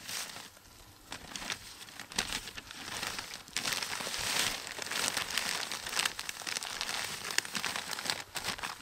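Rustling and crinkling with many small crackles, growing louder about three and a half seconds in.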